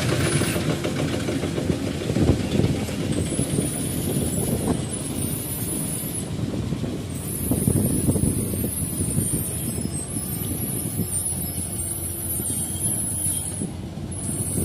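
Heavy diesel engine running with a steady low rumble that swells a couple of times, with a high hiss that comes and goes above it.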